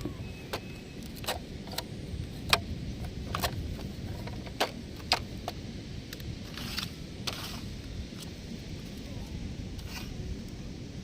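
Heavy truck engine running with a steady low rumble, with a dozen or so sharp, irregularly spaced clicks and knocks on top.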